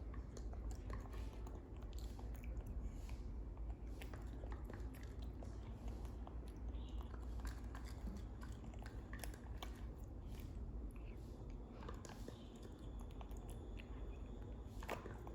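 Pet baby monkey eating, with chewing sounds and scattered small clicks and taps over a steady low hum.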